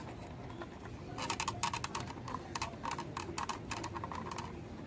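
Quick, irregular clicks and taps of hard plastic toy car parts being handled and fastened by hand, coming thick and fast from about a second in until near the end.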